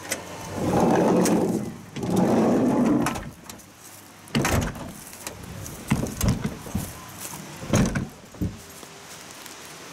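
An old camper van's sliding side door rolling along its track twice, each run about a second long, followed by several sharp clunks and knocks.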